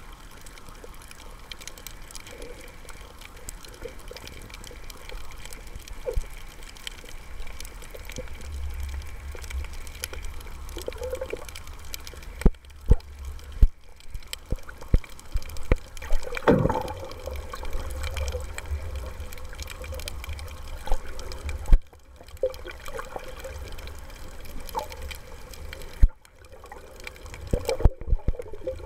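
Water noise heard through an underwater camera on a freedive: a steady hiss with a low rumble of water movement from about a third of the way in, broken by several sharp knocks and pops in the second half.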